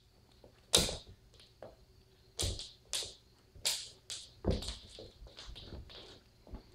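Kitten scuffling with a bra on a hard wooden floor: a run of sharp knocks and scrapes, about seven in all, the loudest about a second in.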